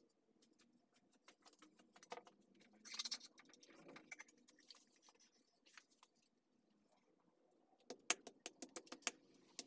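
Faint scattered knife clicks and a short scrape on wood, then from about 8 s a quick run of light hammer taps, several a second, on a small wooden peg set on a wooden stump.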